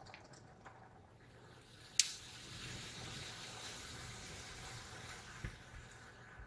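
Automatic car wash's cloth roller brushes and water washing over the windshield, heard faintly through the glass from inside the car as a steady wash of noise. A sharp click about two seconds in.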